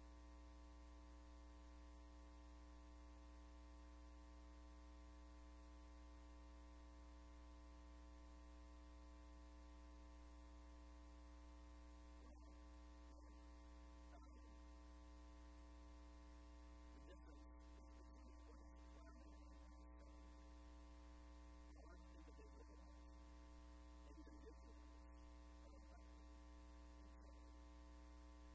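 Near silence: a steady electrical mains hum on the recording. From about halfway through, a very faint voice barely comes through.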